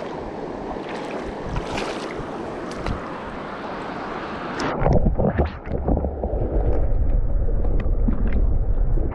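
Rushing water of river rapids. From about five seconds in, wind buffets the microphone with a heavy, uneven low rumble that covers the water.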